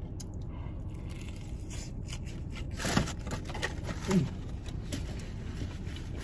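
Eating crispy fried chicken in a car: chewing and the handling of a cardboard chicken box, with a louder scrape or knock about three seconds in and a short low falling sound a second later, over a steady low rumble.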